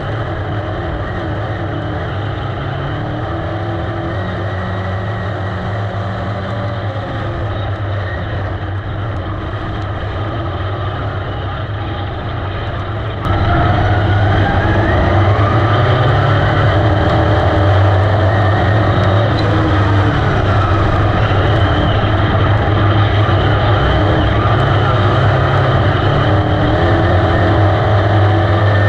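Dirt-track race car's engine running hard at racing speed, heard from inside the cockpit, its pitch rising and falling with the throttle. It gets suddenly louder about thirteen seconds in.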